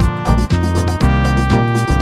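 Background music with a steady beat and heavy bass notes, about two beats a second.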